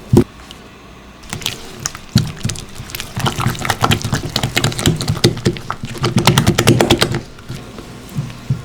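Kitchen baking sounds: a sharp knock, then about four seconds of rapid clicking and scraping from utensils being worked.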